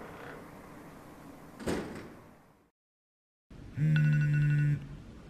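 A single thump, like a door, about a third of the way in; then, after a moment of silence, a mobile phone rings with an incoming call: a buzzing ring about a second long that stops and starts again near the end.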